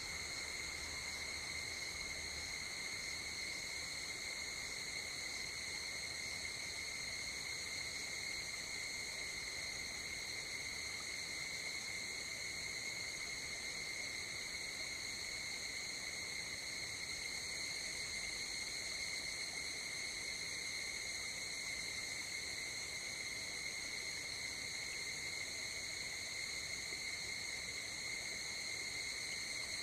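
Night insects such as crickets trilling in a continuous, unbroken high ring, over a faint steady hiss.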